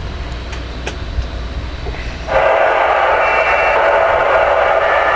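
Low electrical hum with a few faint clicks, then about two seconds in the Cobra 148GTL CB radio's receiver static suddenly comes up loud through its speaker: a steady, narrow-band hiss with faint whistles in it.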